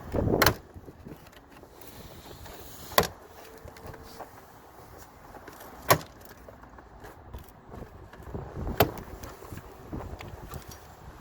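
Plastic retaining clips on a Range Rover Sport L320 door trim panel snapping out of the door one at a time as the panel is pried off with a plastic wedge. There are four sharp pops, about three seconds apart.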